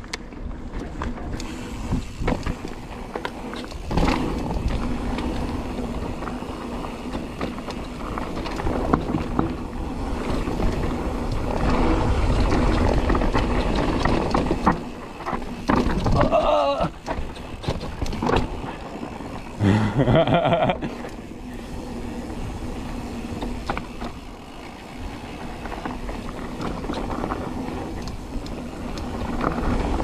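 Mountain bike descending a rough, dry dirt trail: tyres grinding over dirt and rocks, with constant rattles and knocks from the bike as it hits bumps. Two short louder bursts come about halfway through.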